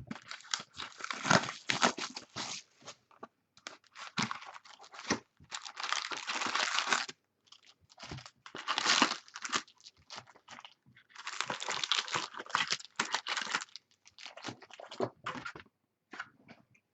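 Wrapping on a box of 2013 Platinum football trading cards and its packs being torn open and crinkled, in irregular bursts of crackling with short pauses between them.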